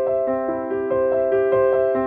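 Solo piano music: a flowing run of notes in two or three interweaving lines, changing every quarter second or so, over held lower notes.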